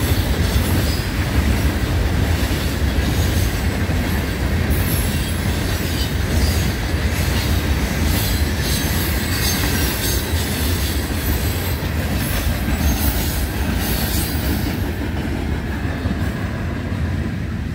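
Florida East Coast Railway freight cars rolling past at close range, a loud steady rumble and rush of steel wheels on the rails. The higher hiss thins out near the end.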